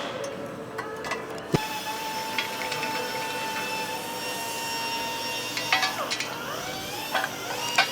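Metal clicks and scrapes of hand tools on the electric motor while the fan cover bolts are being taken out. A knock about a second and a half in, after which a steady high hum runs underneath.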